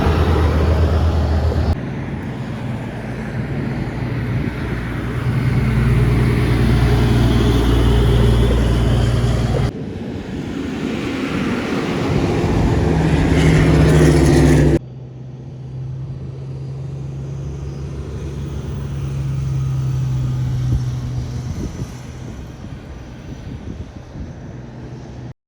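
Heavy trucks running past on a hill road, heard as a few short roadside clips spliced together: a low, steady engine note that changes suddenly about 2, 10 and 15 seconds in, quieter over the last part.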